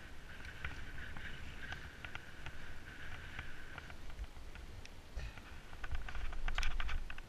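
Mountain bike ridden on pavement: wind rumble on the microphone under light rattling clicks from the bike. A steady high buzz runs for the first four seconds or so and then stops, and the rattling grows louder near the end.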